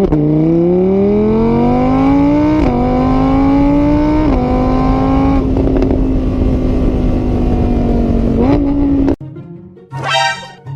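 A vehicle engine accelerating. Its pitch climbs and drops back twice, like upshifts through the gears, then holds steady. It cuts off suddenly a little over a second before the end.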